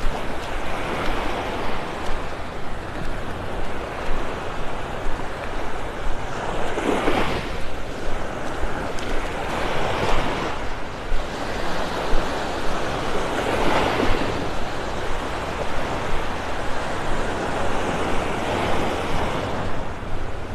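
Small waves breaking and washing up the sand at the water's edge, the wash swelling every three to five seconds.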